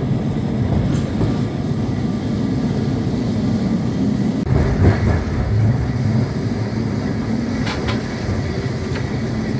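Vintage Lisbon tram running along street track, heard from on board: a steady low rumble of its wheels on the rails, with a louder jolt about halfway through and a few sharp clicks near the end.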